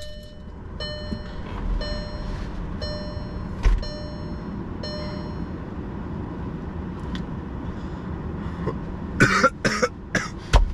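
A long vape hit held to the 'blinker': a series of short, high electronic beeps repeats through the first half over a steady low hum, then a fit of about four harsh coughs near the end.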